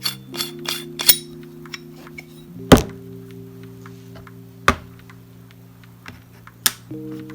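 Soft background music of held chords that shift every couple of seconds, over the clinks and knocks of spunding valve parts being handled and fitted back together. A sharp knock about three seconds in and another near five seconds stand out.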